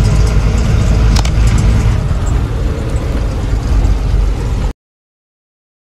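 Goods truck driving, heard from inside the cab: steady engine and road rumble, with a sharp click a little over a second in. The sound cuts off abruptly near the end.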